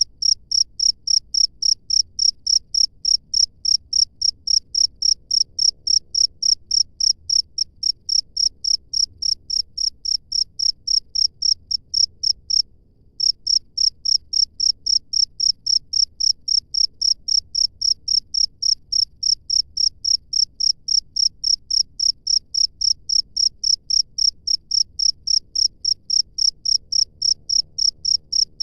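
A cricket chirping in a steady, even rhythm of high-pitched chirps, about two to three a second, with a brief pause about halfway through.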